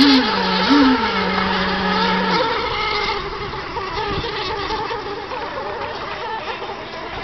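Radio-controlled racing hydroplanes with small nitro glow engines running flat out, giving a steady, high-pitched engine whine. A lower engine note wobbles up in pitch twice early on and stops about two seconds in, after which the whine gets slightly fainter.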